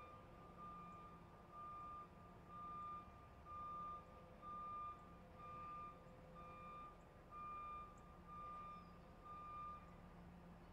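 Truck reversing alarm beeping: one steady tone repeated about once a second, with a low steady hum underneath. The beeping stops shortly before the end.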